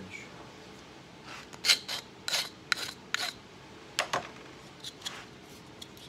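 Short scraping strokes of a file on the freshly lanced edge of a metal screen frame, taking off a sharp burr around the knife-latch slot. About a dozen quick strokes in two or three bunches, starting about a second in and stopping shortly before the end.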